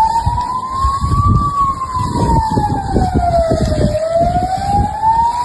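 Emergency vehicle siren wailing: one tone that rises slowly, falls over a couple of seconds, then climbs again, over an uneven low rumble.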